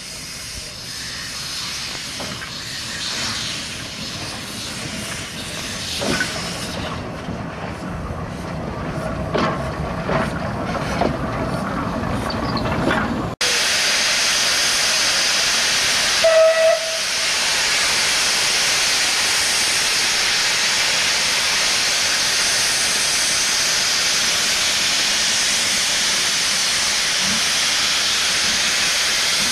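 Isle of Man Railway narrow-gauge steam tank locomotives: first a quieter mix of clanks and leaking steam from a locomotive moving in the yard, then, about a third of the way in, a loud steady hiss of steam blowing from around a locomotive's cylinders. A few seconds after the hiss begins there is one short whistle blast.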